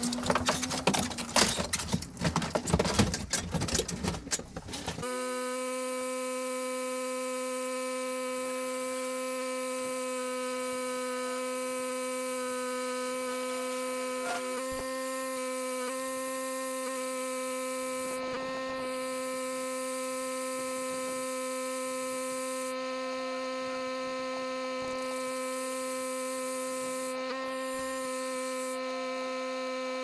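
Aluminium scaffold tower frames clatter and knock as they are rolled up a plank into a van. About five seconds in this cuts to a pressure washer running with a very steady hum, and its high hiss drops out briefly a few times.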